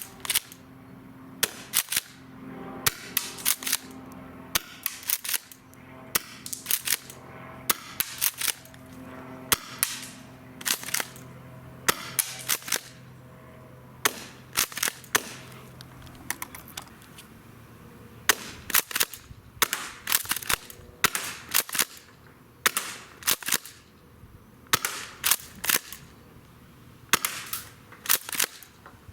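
HPA-powered Tokyo Marui M870 airsoft shotgun being fired and pumped over and over: sharp pops and plastic-metal clacks in tight clusters every second or two. A faint steady hum runs under the first half.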